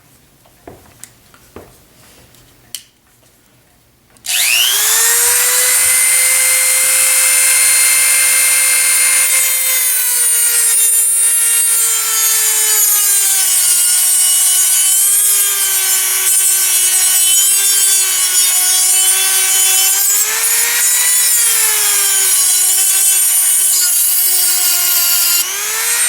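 A few faint clicks, then about four seconds in a Dremel rotary tool switches on and spins up to a high-pitched whine. It runs steadily while trimming material so the larger new deadbolt plate will sit flat, its pitch sagging under load and picking up again several times.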